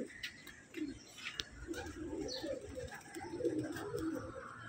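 Domestic pigeons cooing: low, warbling coos repeated several times, with a few faint clicks.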